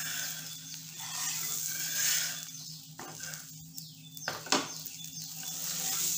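Batter-coated bread frying in butter on a flat griddle (tava), sizzling, while a metal spatula scrapes underneath it; a sharp knock about four and a half seconds in as the sandwich pudla is flipped.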